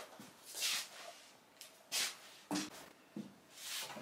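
Short rustles and scuffs from someone moving about, with two sharper knocks in the middle; no machine is running.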